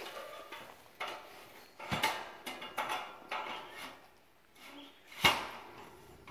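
Metal carport frame tubing clanking and rattling as a roof bow is raised upright, with several sharp metal knocks, the loudest about five seconds in.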